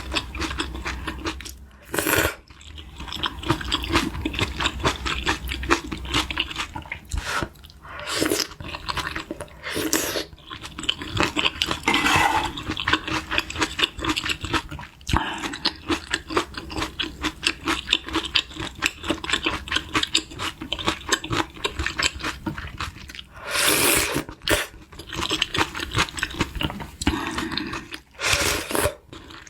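Close-miked eating sounds: chewing, with crunching and wet mouth noises and a few louder slurps or gulps now and then.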